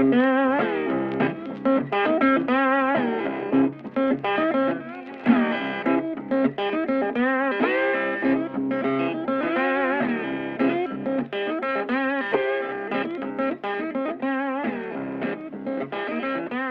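Electric guitar music, a lead guitar playing bending, vibrato-laden melodic lines over a steady backing.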